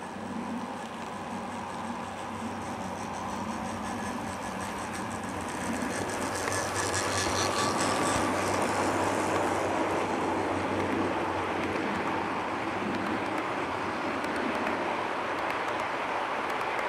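HO scale model freight train running past: the diesel locomotives' motors and the wheels of a long string of freight cars rolling on the track. It grows louder as the train comes close, is loudest about six to nine seconds in as the locomotives go by, then keeps up a steady rolling clatter as the cars pass.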